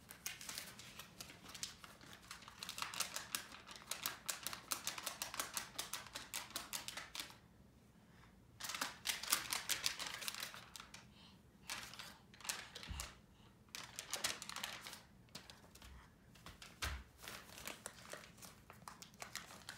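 Sheets of paper rattling and flapping as a toddler shakes them by hand, in several bursts of rapid rattling with short pauses between.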